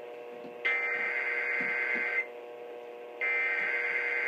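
Emergency Alert System SAME header tones received on an AM radio: two buzzy digital data bursts, each about a second and a half long, with a gap of about a second between them. They mark the start of an EAS test. A steady hum runs underneath.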